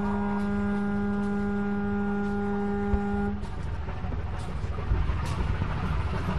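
A horn gives one long, steady blast, the signal for releasing the racing pigeons. It cuts off about three and a half seconds in, leaving a steady low rumble.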